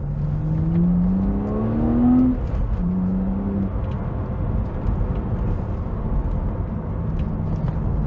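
BMW Z4 3.0si's N52 straight-six pulling under acceleration: the engine note rises steadily for about two seconds, drops sharply at an upshift, holds briefly, then settles to a steadier lower note over road noise.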